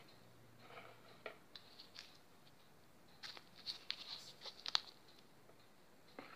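Metal spoon stirring thick flour batter for tempe mendoan in a bowl, with faint wet scrapes and light clicks against the bowl. The clicks come in short spells, busiest from about three to five seconds in.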